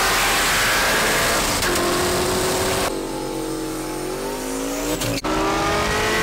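Twin-turbocharged Ford 5.0 Coyote V8 in a Mustang, revving hard at full throttle with its pitch climbing. The sound changes abruptly about three seconds in and again near the end, as separate clips are cut together.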